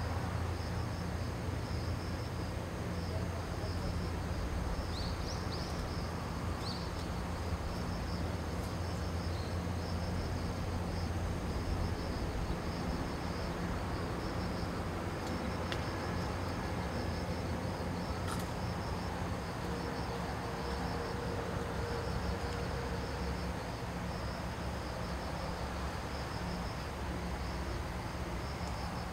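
Insects chirping in a steady pulsing trill, over a low steady rumble.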